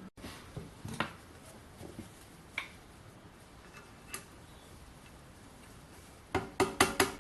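A few scattered metallic clicks of tools on the lathe headstock, then about six seconds in a quick, regular run of ringing metal-on-metal taps, about five a second, while the spindle's back thrust bearing adjuster is worked loose.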